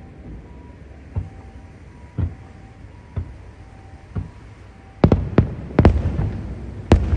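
Fireworks going off: faint booms about once a second, then about five seconds in a quick run of loud, sharp bangs.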